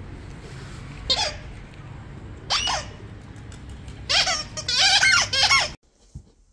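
A dog's squeaky plush toy being squeezed in the jaws of a Bernese mountain dog as it carries the toy. There is one squeak about a second in, another about two and a half seconds in, then a quick run of several, each sliding down in pitch, over steady street noise.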